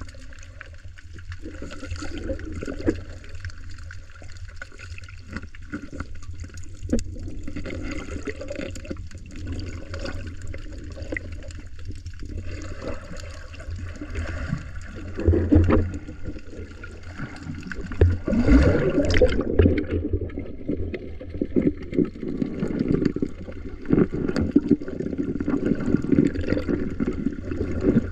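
Muffled water sloshing and gurgling, heard underwater through an action camera's housing, with a low rumble and many irregular small clicks. It grows louder about halfway through and again about two-thirds of the way in.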